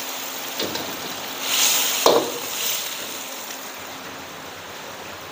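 Boiled instant noodles sizzling in a hot wok as they are stirred in with a steel ladle. The sizzle swells for about half a second around the two-second mark with a sharp knock of the ladle against the wok, then settles to a steadier, softer sizzle.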